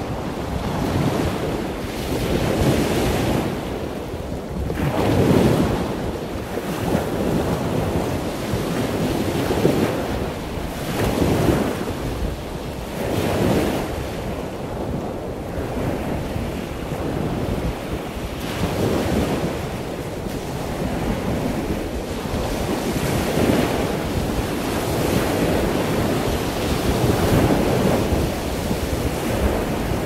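Ocean surf washing onto a beach, with wind buffeting the microphone: a continuous rushing noise that swells and eases every few seconds.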